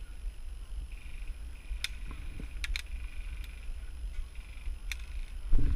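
Low, steady rumble of wind and handling noise on a GoPro microphone, with a few scattered sharp clicks and a heavier knock near the end.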